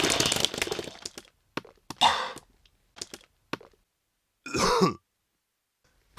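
Person vomiting: a long, wet retch trails off, then a few short spluttering spits, and one short groaning heave that falls in pitch.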